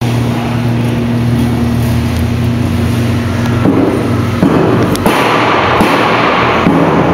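A fixed-bed dryer's electric blower running: a steady motor hum that changes about three and a half seconds in, then a louder, even rush of air from about five seconds in.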